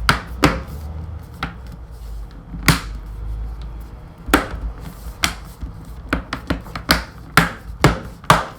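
Irregular sharp clicks and taps of hard plastic laptop parts being handled and worked on, about a dozen over several seconds, over a low handling rumble.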